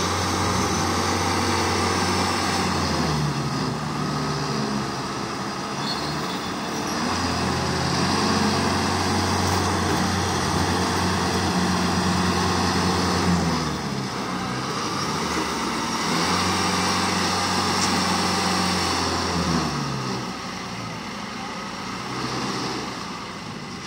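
Engines of a tracked tractor and a combine harvester running hard as the tractor hauls the combine out of deep mud. A steady engine drone swells with a stronger low hum three times, each for several seconds, as the load comes on and eases.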